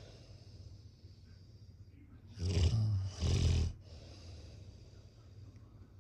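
A person snoring: one loud, low snore about two and a half seconds in, made of two pulls a moment apart.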